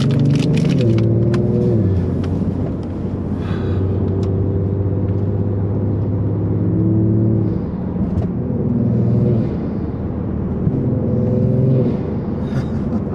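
2021 Kia Stinger GT2's twin-turbo V6 heard from inside the cabin while driving: the engine note drops in pitch about two seconds in, holds steady for several seconds, then rises and falls again as the car accelerates and eases off.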